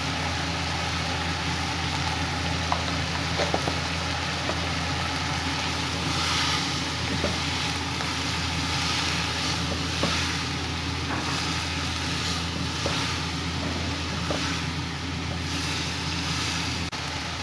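Shredded cabbage, carrots and green beans sizzling in a non-stick wok as they are stirred and tossed with a spatula. The hiss swells with each toss, and there are a few light knocks of the spatula against the pan, all over a steady low hum.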